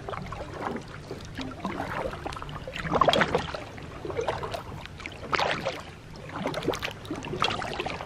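Kayak paddle strokes in lake water: the blades dipping and pulling in swells about every two seconds, with water splashing and trickling off the paddle.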